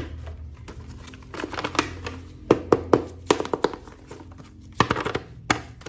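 Toy packaging being handled and opened: irregular clicks, taps and crinkles of plastic in two flurries, the first about a second and a half in and the second near the end.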